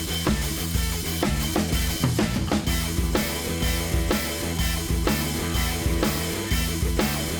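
Background music with a steady drum-kit beat and bass line.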